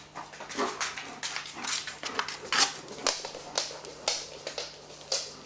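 A large dog sniffing and snuffling at close range: an irregular string of short, breathy sniffs, two or three a second, the loudest about two and a half seconds in.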